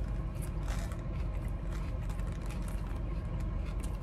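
A person chewing a mouthful of hamburger, with faint scattered mouth clicks, over a steady low rumble of the car cabin.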